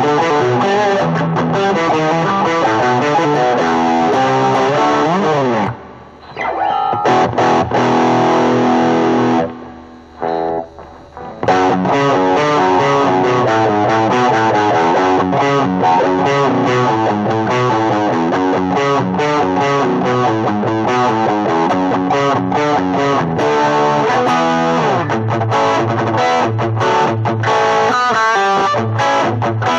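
Better LP-10 Les Paul-style electric guitar played in quick runs of notes, with a falling slide down the neck about five seconds in and two brief pauses around six and ten seconds in.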